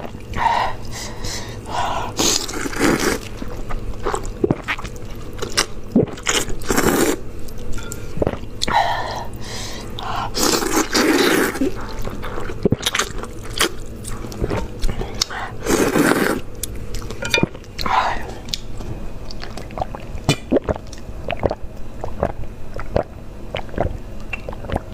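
Glass noodles being slurped from a bowl of spicy broth, heard close to a clip-on microphone: several long wet slurps, with many short wet chewing clicks between them.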